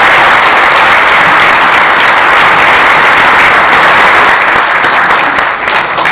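Audience applauding steadily, a dense sustained clapping that begins to thin out near the end.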